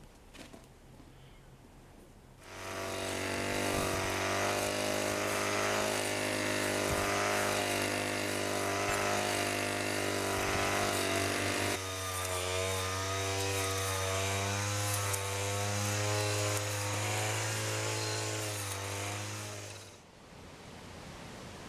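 Background music: a sustained, buzzy synth-like chord over a steady low drone, switching to a new set of wavering tones about halfway through, then fading out.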